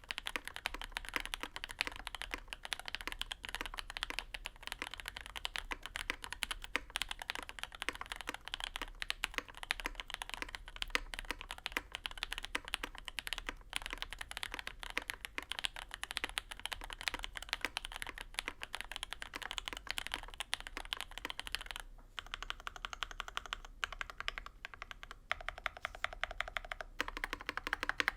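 Continuous fast typing on a custom Endless-80 mechanical keyboard: lubed and filmed JWK Lilac linear switches under GMK Laser keycaps on an aluminium plate, with plate foam and a tape mod that give a deeper, poppy keystroke sound. The stream of keystrokes thins out and becomes less even near the end.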